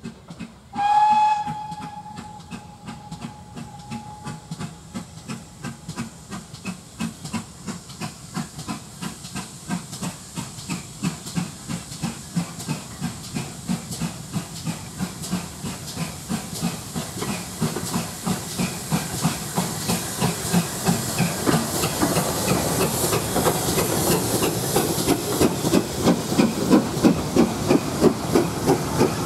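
Steam locomotive gives one short whistle blast about a second in, then its exhaust beats come in a steady rhythm, growing louder as it approaches hauling a goods train. Near the end the engine passes close with loud chuffing and steam hiss, and the wagons rumble by behind it.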